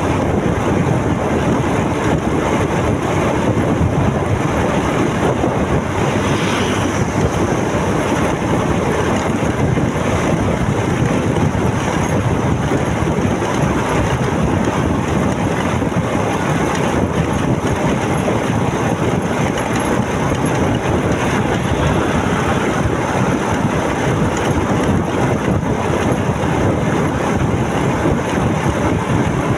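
Motorcycle on the move: a steady rush of wind and road noise with the engine running under it.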